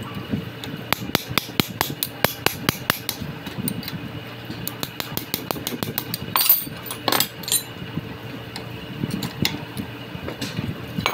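Steel hand tools clicking and clanking on a Hyundai Creta steering rack's inner tie rod ball joint as it is fitted and tightened with a spanner. A quick run of sharp metallic clicks about a second in, then scattered, louder clanks.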